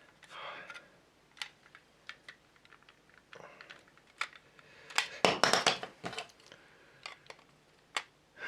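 Small plastic model kit parts being handled and pressed together, with scattered light clicks and taps and a louder burst of rough handling noise about five seconds in.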